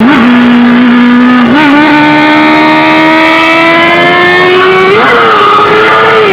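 Yamaha YZF-R6 inline-four engine running under way, its pitch stepping up about a second and a half in and then climbing steadily as the bike accelerates, with a brief dip and change around five seconds in.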